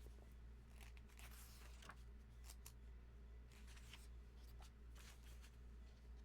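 Pages of a hardcover comic omnibus being turned: several faint, short paper rustles and swishes over a low steady hum.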